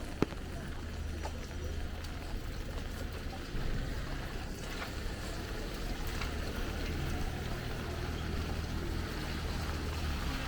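Light rain on an umbrella, faint scattered drop ticks, over a steady low hum of city traffic; a single sharp tap just after the start.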